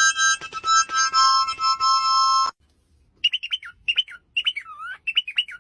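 For the first two and a half seconds, a chord of steady high tones with clicks over it cuts off suddenly. After a short pause, a bird gives a rapid series of short chirps, each sweeping down in pitch.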